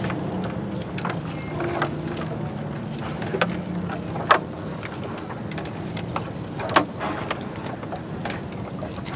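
A boat engine running steadily, with a few sharp knocks and clicks over it, the loudest about four seconds in and again near seven seconds.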